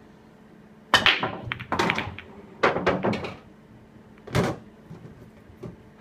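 Break shot in 8-ball pool: the cue ball smashes into the racked balls about a second in, setting off a clatter of balls knocking together and against the cushions. A few more loud knocks follow as the balls spread, one near the four-second mark.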